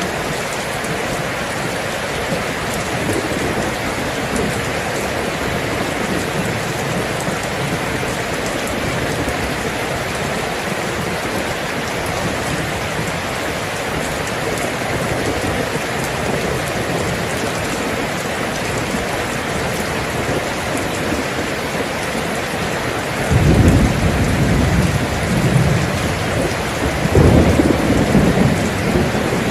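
Steady rain falling, with thunder rumbling in low about 23 seconds in and rolling again near the end.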